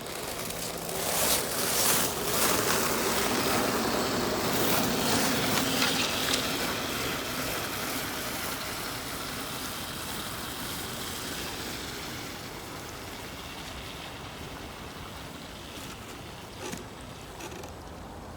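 Electric RC crawler truck running over snow: its small brushed motor and geared drivetrain whirring with a noisy rush, louder in the first half and easing off later.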